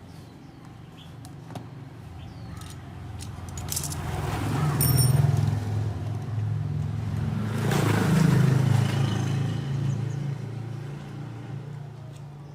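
A motor vehicle passing by, its engine noise swelling and fading twice, peaking about three seconds apart. A few light metallic clinks are heard near the start.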